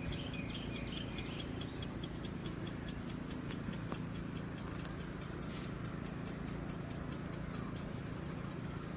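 Low, steady hum of a honeybee colony at an opened hive, with a fast, even ticking above it that breaks off briefly near the end.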